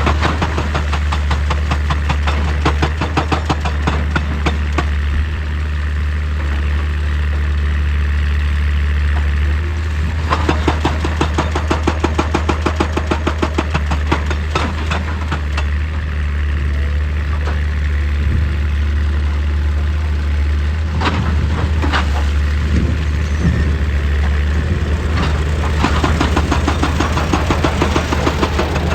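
Excavator engine running steadily under a dense rhythmic clatter, with a few sharper knocks about two-thirds of the way through.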